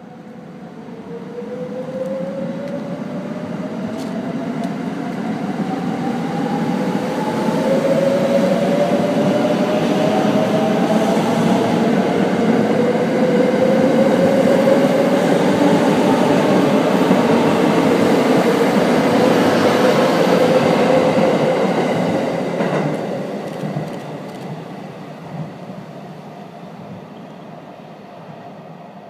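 Shirasagi limited-express electric multiple unit (681/683 series) running past. A whine from its electric traction equipment rises in pitch over the first several seconds as it gathers speed, and its wheel and running noise swells to a peak in the middle, then fades as it moves away.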